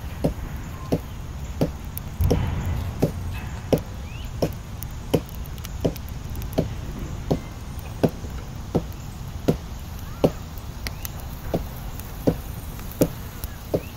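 Steady, even chopping: about twenty dull strikes, roughly three every two seconds. A short rush of noise comes about two seconds in.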